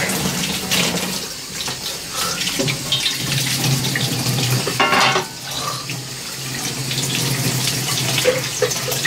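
Tap running into a stainless steel sink, water splashing steadily over a hand, with a short clatter about five seconds in.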